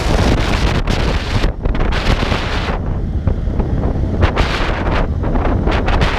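Wind buffeting the microphone of a camera riding on a motorcycle at road speed. It is a loud, gusty rush that eases for about a second some three seconds in.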